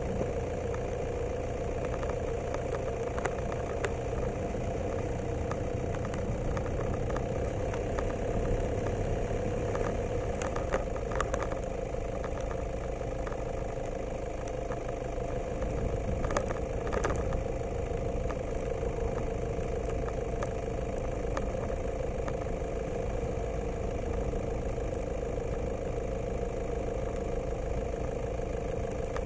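Steady motor running at a constant mid-pitched hum, with a few brief rattles near the middle.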